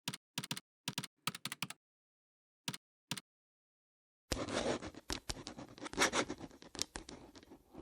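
Everyday handling sounds: a few short, light clicks or taps with silence between them, then from about four seconds in a dense run of scratching and rustling with many small clicks.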